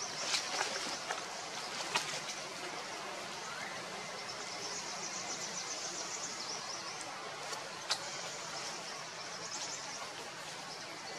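Outdoor forest ambience: a steady hiss with insects buzzing high in the middle stretch, and a few sharp clicks, the loudest about two seconds in and near eight seconds.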